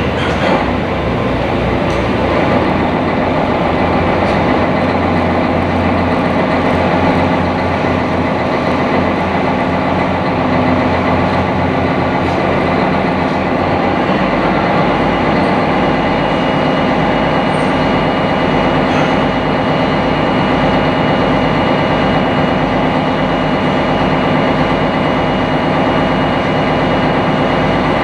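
Sightseeing boat's engine running steadily under way, a loud drone with a low throb that shifts about halfway through.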